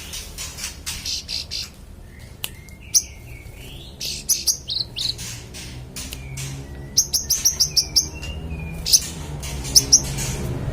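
A manggaran songbird singing busily in bursts of rapid, sharp, high chirps, with a few lower whistled glides between them. A steady low hum runs underneath.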